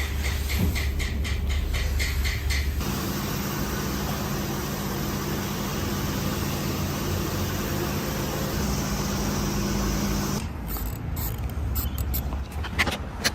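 Industrial machinery sounds in three parts: a fast run of evenly spaced mechanical clicks at first, then a steady machine hum from about 3 seconds in, then irregular clicks and knocks over the last few seconds.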